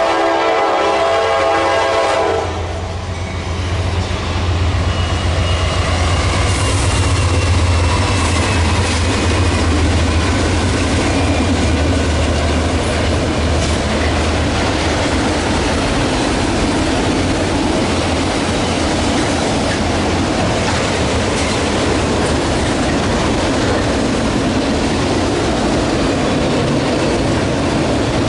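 A Norfolk Southern GE diesel freight locomotive's air horn blowing a steady chord as it approaches, cutting off about two seconds in. The lead diesel locomotives then pass with a deep engine drone that fades after about a dozen seconds, and the autorack cars roll by with steady wheel and rail noise and clickety-clack.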